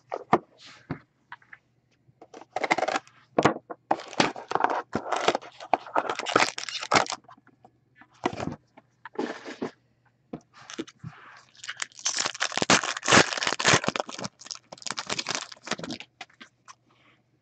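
Sealed hobby box of hockey cards being torn open: plastic wrap and foil card packs ripping and crinkling, in irregular bursts of rustling with clicks and scrapes of cardboard and cards being handled.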